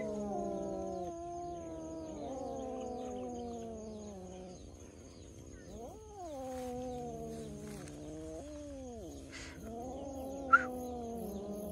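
Cats yowling in long, drawn-out calls that slide slowly up and down in pitch and overlap one another, with one short sharp squeak near the end.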